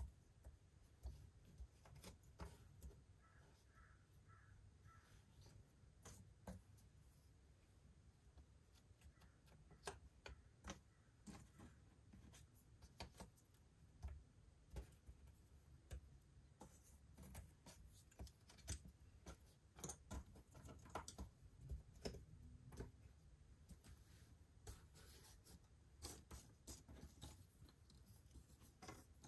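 Faint, scattered clicks and taps of cardboard jigsaw puzzle pieces being picked up, slid and set down on a tabletop.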